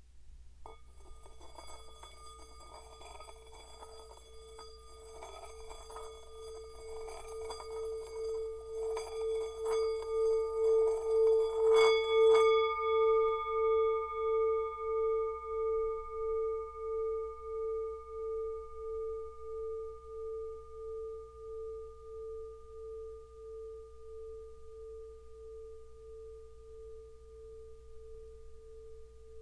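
Tibetan singing bowl played continuously with a scraping, rubbing texture over its ringing tone, swelling louder for about twelve seconds. Then comes a light knock, and the bowl rings freely with a slow pulsing wobble, slowly fading.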